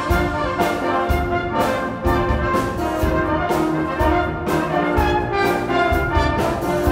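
Full brass band of cornets, horns, euphoniums, trombones and tubas playing held chords over a steady percussion beat of about two strokes a second.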